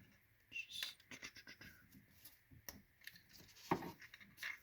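Faint, irregular metal clicks and scrapes of a screwdriver working a rocker arm back into place over its hydraulic lash adjuster and valve on the cylinder head, with two louder clicks near the end.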